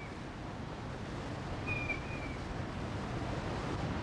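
Rushing water of river rapids, a steady noise. A short high-pitched call sounds about two seconds in.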